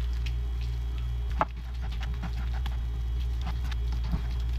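Silicone spatula pressing and mashing steamed sweet potato against a plate, soft scattered taps and squishes with one sharper knock about a second and a half in, over a steady low hum.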